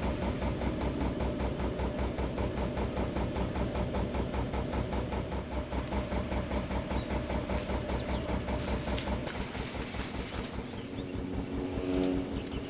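Narrowboat diesel engine ticking over with a steady, even chugging beat, heavier in the first half and lighter after about halfway.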